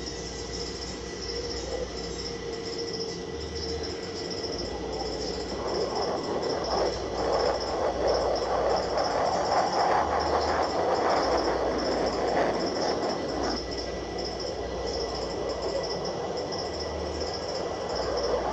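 Fighter jet engines roaring as the aircraft flies past. The roar swells about five seconds in, is loudest in the middle and eases off toward the end.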